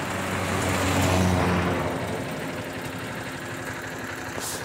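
A vehicle engine running with a steady low hum under a rush of noise that swells about a second in and then eases.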